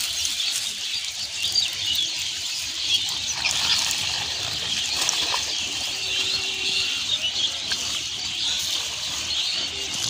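Outdoor chorus of many small birds chirping, a continuous dense high-pitched chatter.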